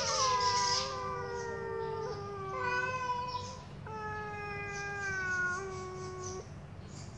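Cats yowling at each other in a territorial standoff through a window grille: three long, drawn-out, slowly wavering calls, at times two voices overlapping.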